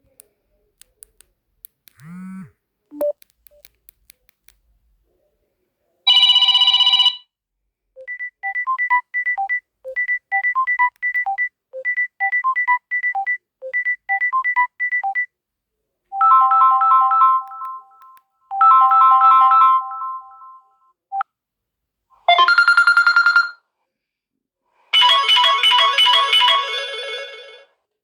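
Samsung Galaxy A20 ringtones playing one after another: about six short electronic tunes and chimes, each a second or a few long and cut off abruptly, with gaps between them. A few faint clicks and short gliding sounds come before the first tone.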